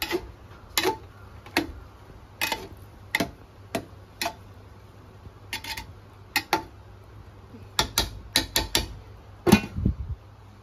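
Metal spatula scraping and knocking against an aluminium pot as rice is stirred: sharp, irregular clinks about one or two a second, coming quicker near the end, with a louder metal clank just before the end.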